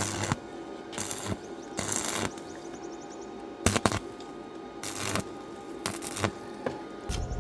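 Metal tools and parts clinking and rattling as they are handled, in a string of short knocks and scrapes.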